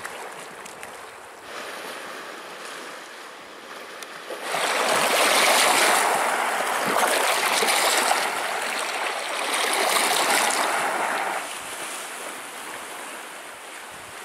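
Lake Superior waves washing and splashing over a flat sandstone ledge at the water's edge: an even rushing that swells much louder for several seconds in the middle, in about three surges.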